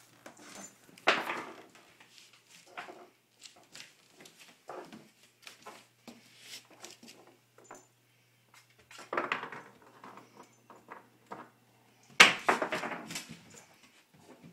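A Miniature Schnauzer puppy playing with a dog biscuit on a wooden floor: scattered light clicks and knocks, with louder bursts about a second in, about nine seconds in, and near the end.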